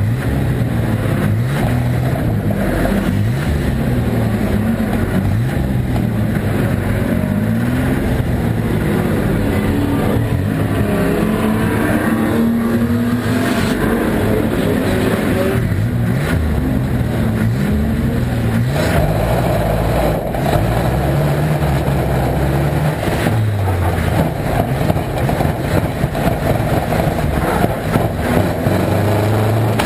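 Volvo estate banger car's engine heard from inside its stripped-out cabin, rising and falling in pitch again and again as the throttle comes on and off. Knocks and rattles from the bare bodywork come through it, more of them in the last few seconds.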